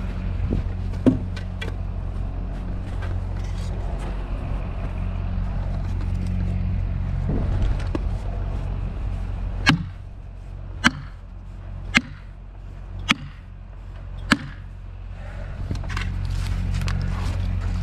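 An engine idling steadily with a low even hum, dropping lower for a few seconds in the middle. While it is lower, five sharp knocks come about a second apart.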